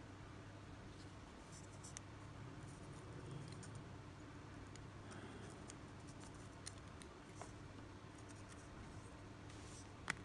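Faint small clicks and scratches of metal fishing hooks and wire being handled, over a low steady hum, with one sharper click near the end.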